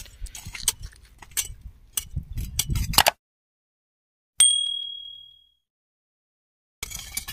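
A hand hoe chops and scrapes loose earth and stones in a trench, giving scattered knocks and clinks. Then the sound cuts out to dead silence, and a single bright bell-like ding sounds about four and a half seconds in and fades over about a second: an added notification-bell sound effect. Site noise resumes near the end.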